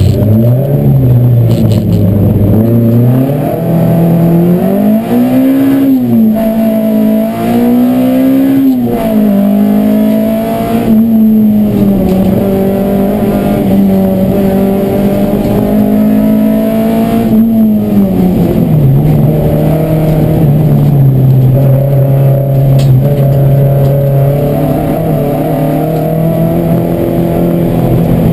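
Race car engine heard from inside its stripped cabin, pulling hard. Its revs climb and drop back twice, like upshifts, then hold steady and settle to lower revs about two-thirds through.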